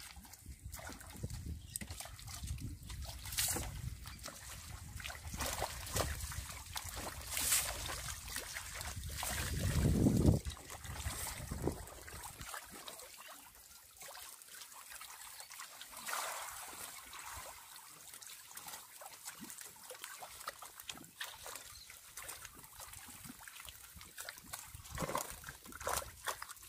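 Water trickling and splashing around a bamboo-framed lift net as it is handled, with scattered small clicks and splashes. A low rumble fills the first half and swells to its loudest about ten seconds in, then drops away.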